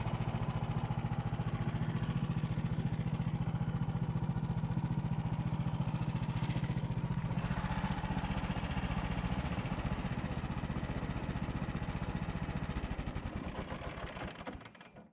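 Off-road vehicle's engine running steadily with an even, fast pulse. It winds down and stops just before the end.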